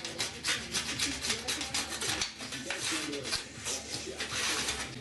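Rapid, repeated scraping strokes of a hand deburring tool on aluminium sheet, several a second, stopping near the end, with faint background music underneath.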